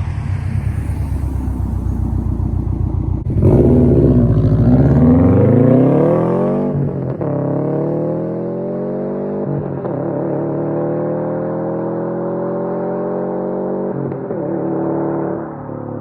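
2018 Subaru WRX STI's turbocharged 2.5-litre flat-four, breathing through an ETS Extreme cat-back exhaust with no resonator or mufflers, pulling hard through the gears. The engine note climbs, drops sharply at an upshift about seven seconds in, then climbs more slowly in the next gear, with another brief dip near the end.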